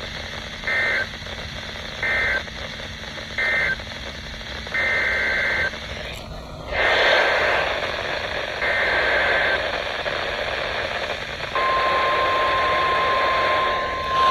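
Emergency Alert System SAME header over NOAA Weather Radio: a series of five short, buzzing digital data bursts heard through steady radio hiss, followed from about 11 seconds in by the long, steady single-pitch warning alarm tone that comes before a weather warning.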